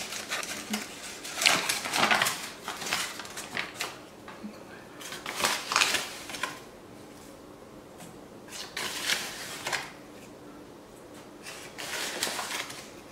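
Kitchen utensils clinking and scraping against a mixing bowl in four short bouts a few seconds apart, as dry baking ingredients are handled and mixed.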